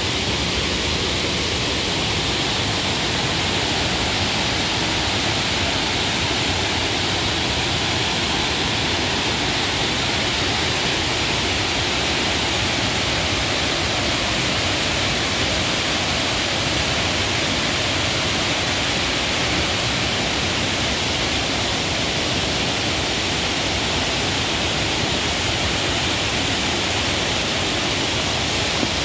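Waterfall on a mountain river rushing in full flow, swollen by heavy rains: a steady, unbroken sound of falling water.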